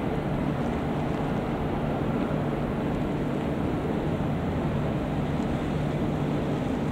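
Steady, even rumble of distant jet airliner engines across the airfield, with no distinct events.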